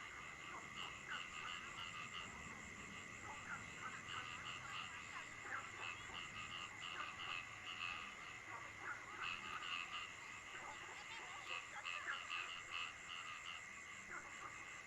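A chorus of frogs calling in quick, overlapping runs of short notes over steady falling rain, with a continuous high-pitched drone behind them.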